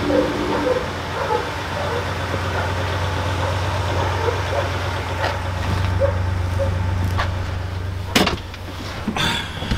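Vehicle engine idling steadily. There is a sharp knock about eight seconds in and a lighter one a second later.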